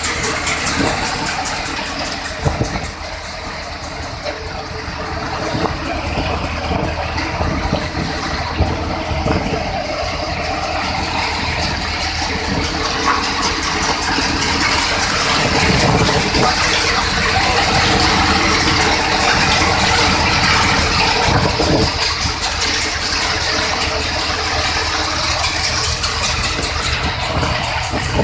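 Mini combine thresher running steadily, a loud continuous mechanical din of the machine at work.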